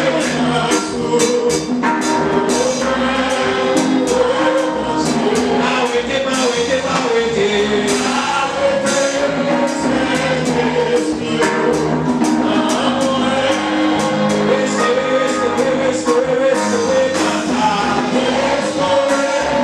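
Live gospel worship music: voices singing a song together over a drum kit and conga drums, with regular drum and cymbal strikes keeping a steady beat.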